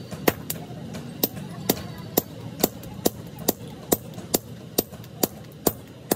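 Two strikers taking turns with sledgehammers on red-hot truck leaf-spring steel held on an anvil block, a steady rhythm of sharp metal-on-metal blows about two a second.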